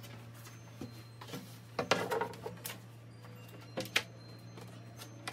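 Knocks and scrapes as a 3/4-inch plywood panel is handled and lowered onto a marble table top: a cluster of knocks and scraping about two seconds in, then two sharp knocks about four seconds in, over a low steady hum.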